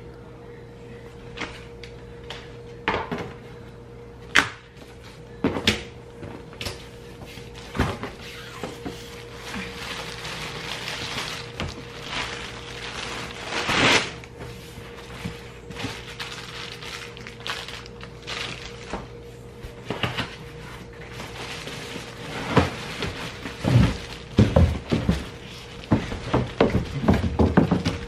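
Large cardboard box being cut and opened by hand: scattered knocks and scrapes of a box cutter and cardboard flaps, a stretch of rustling cardboard and packing, then a run of heavy thuds and plastic-wrap rustle near the end as a plastic-wrapped compact stroller is lifted out. A faint steady hum runs underneath.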